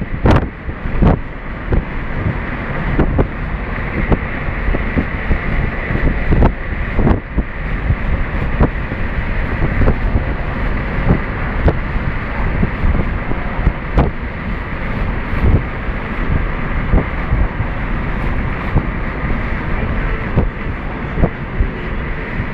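Wind rushing over the microphone of a moving vehicle, over a steady low rumble, with frequent short knocks and buffets.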